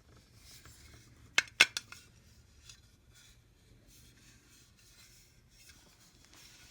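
A quick cluster of three or four sharp metallic clicks about a second and a half in, then one softer click, from a small stainless steel hip flask being handled, with faint rubbing between.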